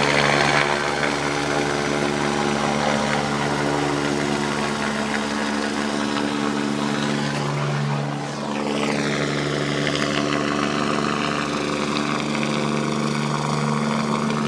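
Helicopter flying overhead: a steady drone of engine and rotor whose pitch holds level, with a sweep in the higher sounds and a brief dip in loudness about eight seconds in as it passes over.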